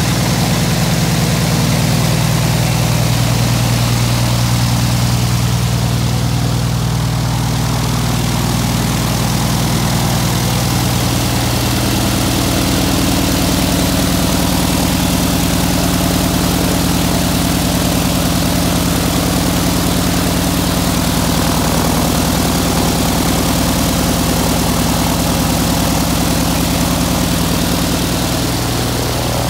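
UL Power UL520iS six-cylinder air-cooled aircraft engine running steadily at low power on the ground, turning a pusher propeller. The engine note changes slightly about twelve seconds in.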